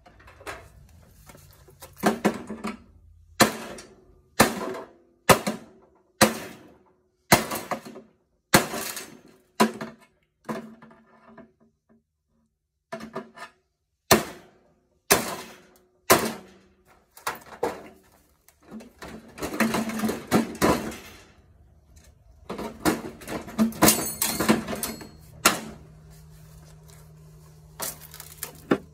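Heavy knocks on the parts of a washing machine being stripped for scrap, about one a second, eight in a row, then after a short pause four more. Rattling and clanking of loose metal parts follows, with a brief metallic ring.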